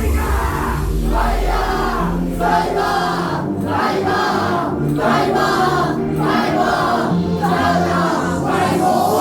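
Live band performing a song with sung vocals over full instrumental backing, in phrases of about a second each.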